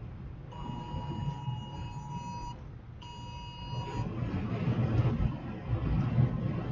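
Two electronic alert beeps, a long one of about two seconds and then a shorter one of about a second, over the low rumble of a vehicle driving. The rumble grows louder in the second half.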